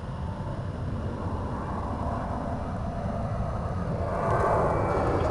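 Jet engine noise of a Boeing 737 climbing out after takeoff, a deep rumble that grows steadily louder, with a jump in level about four seconds in.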